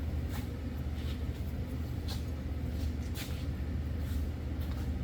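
Steady low hum with about five faint, short metallic clicks and taps spread across it, from brake pad clips being handled and fitted into the caliper bracket.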